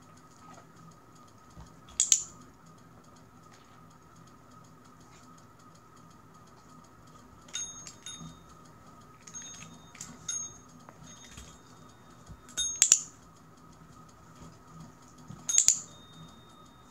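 Service bell on the floor being pressed by a dog: three clear dings about 2, 13 and 15 seconds in, with a run of lighter, partial taps on the bell in between.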